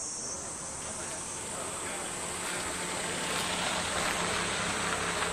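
Summer outdoor ambience: insects droning in a steady high band over a wash of noise that swells about halfway through, with indistinct voices.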